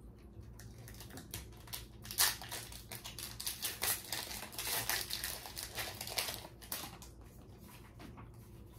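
Foil Pokémon card booster pack being torn open by hand, the wrapper crinkling in a run of sharp rustles that starts about two seconds in and dies down about seven seconds in.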